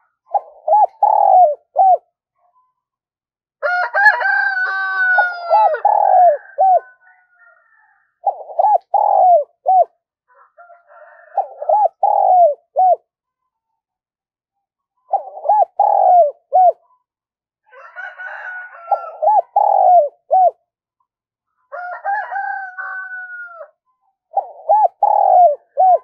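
Spotted dove cooing: phrases of three or four short coos repeated every three to four seconds. A few longer phrases have drawn-out, downward-sliding notes.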